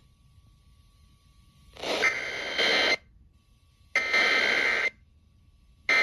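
Emergency Alert System SAME header received off a radio broadcast: three bursts of buzzy digital data tones, each about a second long and a second apart, the last starting near the end.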